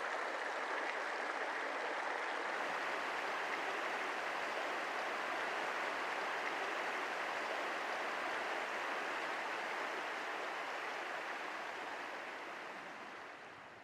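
A small mountain stream's water flowing steadily, fading out near the end.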